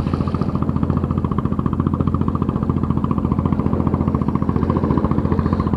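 An engine running steadily at an even speed, a low, fast, regular throb that does not change.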